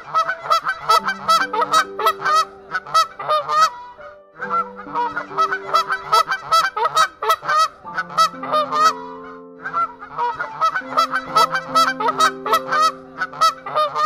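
Waterfowl honking in rapid, repeated calls, in three runs broken by two short pauses, over soft background music with long held notes.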